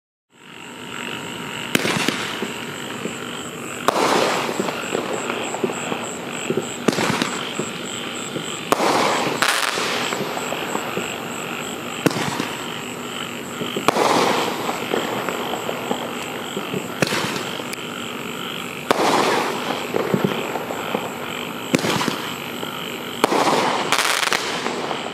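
A consumer Roman candle firing about a dozen shots one to three seconds apart, each a sharp report followed by crackling as the stars burn out.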